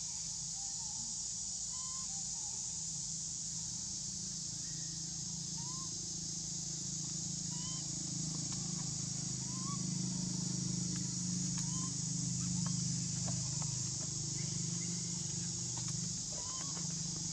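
Steady high insect drone over a low steady hum, with short rising chirps every second or two.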